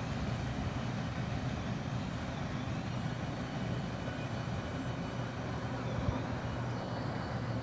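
Steady low rumble of a CSX coal train's hopper cars rolling away on the rails.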